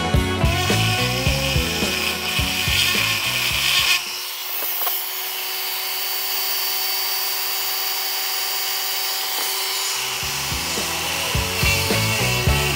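Background rock music with a steady beat drops out about four seconds in. For some six seconds only a rotary tool's burr bit is heard, whining steadily as it grinds an engraving into stone. The music then comes back in.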